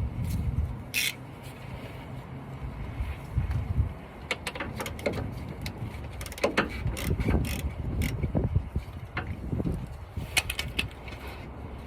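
Socket ratchet clicking in short bursts, working a fastener under the truck, over a low rumble in the first few seconds.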